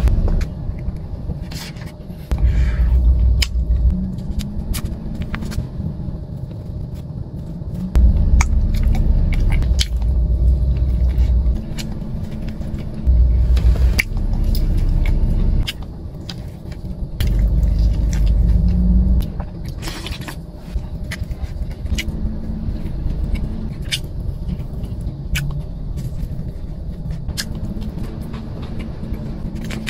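Close-up eating sounds: biting and chewing a warm, crusty bread roll, with many small crackles and clicks from the crisp crust. A deep rumble comes and goes in several stretches of a few seconds and is the loudest sound.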